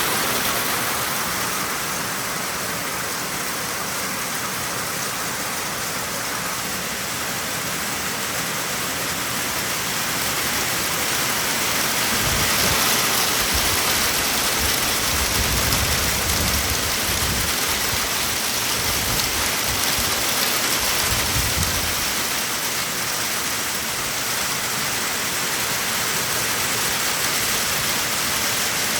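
Heavy rain with small hail pouring down steadily. A low rumble rises under it about twelve seconds in and fades some ten seconds later.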